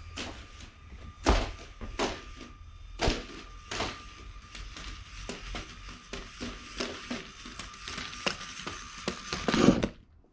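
LEGO Technic walking robot clattering across a plywood floor: an uneven run of plastic knocks and thunks from its crank-driven legs and feet, over a faint steady whine from its motors. The loudest knocks come in a cluster near the end, then the sound cuts off sharply.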